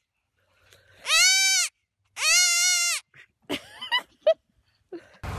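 Baby goat bleating loudly twice, each call lasting under a second with its pitch rising and then falling.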